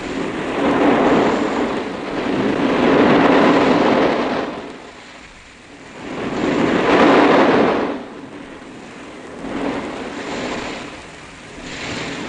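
Sea surf washing up onto a beach: waves rise and fall away in swells every few seconds.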